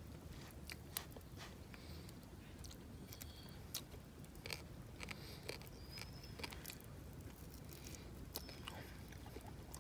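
A person picking apart and chewing a small roasted bird: faint, scattered small crunches and clicks of flesh and little bones, over a low steady background.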